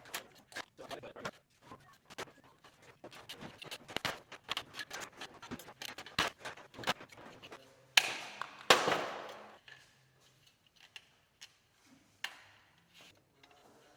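Hand work with metal ceiling panels and trim: a run of small clicks, scrapes and rattles, then two loud bangs about eight and nine seconds in, the second ringing out for about a second.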